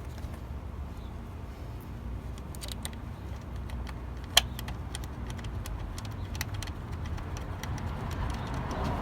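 Small metallic clicks and clinks from hand tools, ratchet and socket work, scattered from about two and a half seconds in, with one sharp click near the middle, over a steady low rumble.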